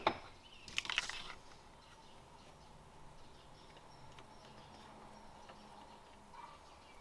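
A few sharp metallic clicks in the first second from a wrench working the power steering pressure switch loose, then quiet background.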